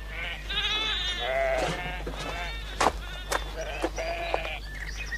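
Sheep bleating, several quavering calls one after another and overlapping, with two sharp clicks near the middle.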